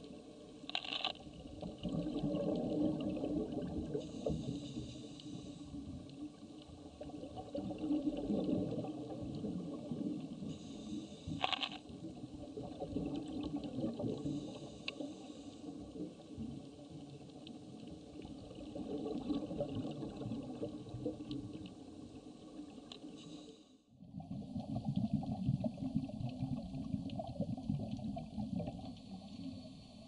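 Underwater rumble of a scuba diver's exhaled bubbles, swelling in bursts every few seconds, with a few faint clicks and a higher hiss between breaths. The sound drops and changes abruptly near the end.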